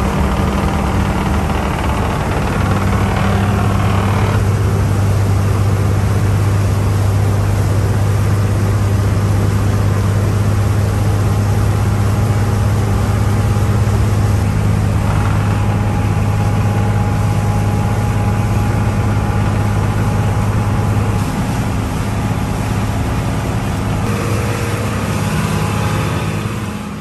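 Yanmar 6CX-ET six-cylinder inboard marine diesel running steadily at cruising speed, with the rush of water and spray along the hull.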